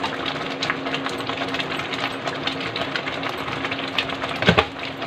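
Thick tomato-onion masala paste crackling and sputtering as it fries in a kadhai, over a steady low hum; a sharper knock about four and a half seconds in.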